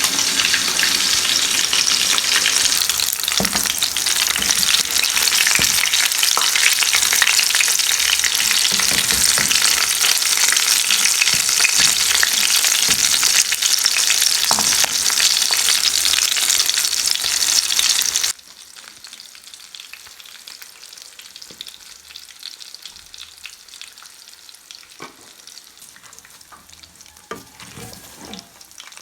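Food frying in a pan with a loud, steady sizzle. About eighteen seconds in it cuts off suddenly to a much quieter stretch of scattered utensil clicks and scrapes as the food is stirred.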